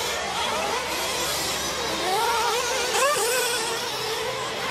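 Several nitro RC trucks' small glow engines screaming, revving up and down in quick rising and falling whines as they race.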